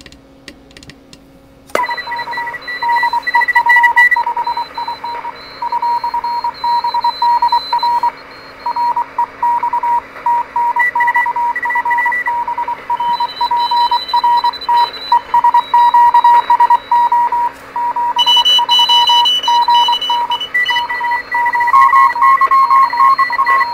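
Morse code (CW) from a distant station heard on a 1960s Heathkit HR10B shortwave receiver on 40 meters: a steady mid-pitched beep keyed on and off in dits and dahs over band hiss and static. The hiss comes up suddenly about two seconds in, and near the end a second, slightly higher beep joins the first.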